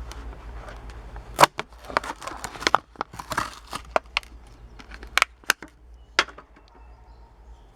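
Hot Wheels blister-card packaging being opened by hand: stiff plastic crackling and cardboard tearing in a string of sharp snaps and crinkles. The loudest snaps come about a second and a half in and again around five to six seconds in.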